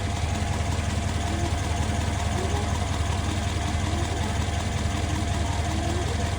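Mercedes-Benz M157 twin-turbo V8 idling steadily with a knocking noise that the owner cannot explain. A faint steady whine runs over the engine note.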